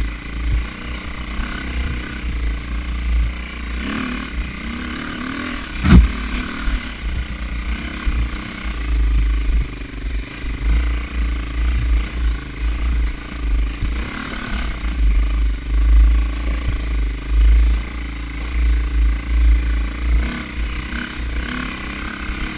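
Dirt bike engine running while the bike jolts over rough ground, with rattling and one sharp knock about six seconds in, the loudest sound.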